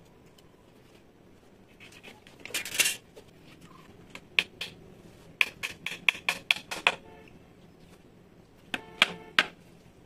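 Claw hammer driving a nail into the corner joint of a wooden frame. A short scuff comes about two and a half seconds in, then a quick run of about eight sharp blows, and three more blows with a slight ring near the end.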